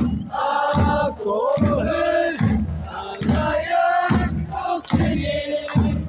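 A crowd of football supporters singing a chant in unison, with a low thump about every half second keeping the beat.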